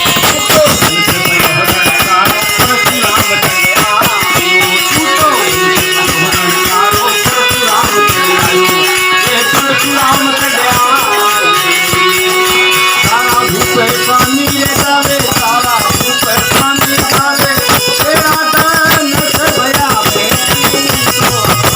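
Live devotional bhajan music: a melody with bending and held notes over a fast, steady percussion rhythm with a rattling, shaker-like sound.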